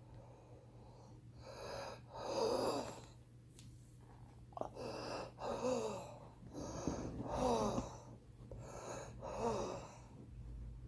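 A heavy smoker's wheezing breathing: four labored breaths in and out, the louder part of each carrying a whistling wheeze that slides down in pitch.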